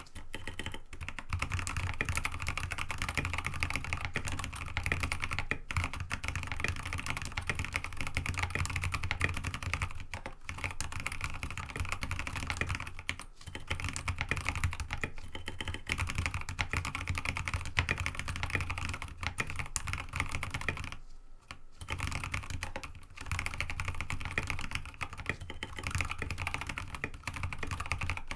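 Continuous typing on an mStone Groove T87A mechanical keyboard with Kailh Box Ancient Gray switches, an aluminium plate and mStone MA keycaps: a dense run of keystrokes broken by a few short pauses, about 10, 13 and 21 seconds in.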